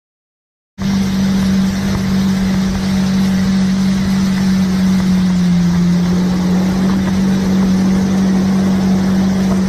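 Motorboat engine running steadily at speed, a strong even hum with rushing water and wind. It starts abruptly about a second in, and its pitch sags briefly near the middle before settling back.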